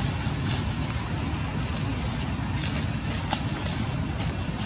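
Steady outdoor background noise: a low rumble with hiss.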